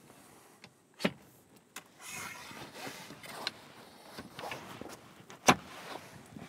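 A tent spreader bar being fitted into a camper trailer's canvas roof: a sharp knock about a second in, then the canvas and pole rustling and scraping, and a louder sharp knock near the end as the bar goes into place.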